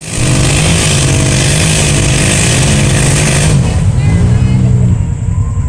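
Engine of a side-by-side UTV stuck nose-down in a mud hole, revved hard to spin it free: held high, dropping about three and a half seconds in, then revved up and back down once more. A loud hiss over the engine cuts off as the revs drop.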